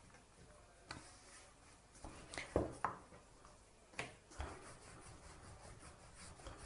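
Wooden rolling pin rolling paratha dough out on a wooden board, a faint rubbing with a few soft knocks as the pin and dough are handled.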